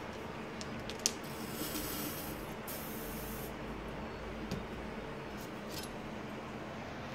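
WD-40 aerosol can spraying into a PVC tube in two hissing bursts, each about a second long, starting about a second and a half in. A sharp click comes just before, and a few lighter clicks follow.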